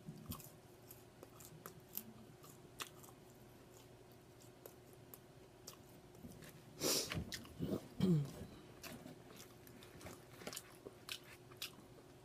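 Close-up chewing and biting on a spicy fried chicken sandwich: wet mouth clicks and light crunching. About seven seconds in comes a louder breathy noise, then two short vocal sounds falling in pitch.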